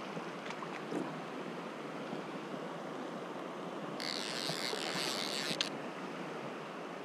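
Shallow stony river flowing, a steady rush of water. About four seconds in a brighter hiss rises over it for a second and a half, then stops.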